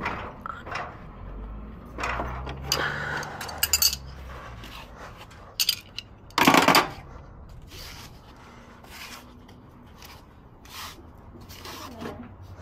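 Adjustable wrench clinking and scraping against the brass flare nuts and service valves of a mini-split outdoor unit: a series of separate sharp metallic clicks, with a louder clatter about six and a half seconds in.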